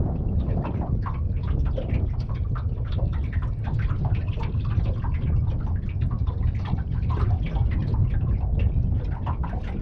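Small wavelets lapping and slapping irregularly against the hull of an aluminium dinghy, with wind buffeting the microphone as a steady low rumble.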